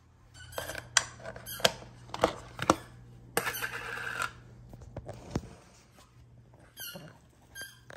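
Clear plastic deli container being opened and handled on a stone countertop: a series of sharp plastic clicks, then a rustle of the dried bedding inside about halfway through. Near the end come two short high squeaks that slide down in pitch.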